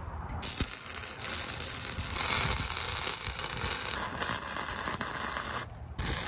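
Steel being arc-welded: a steady crackling hiss from the welding arc. It cuts off briefly near the end, then starts again.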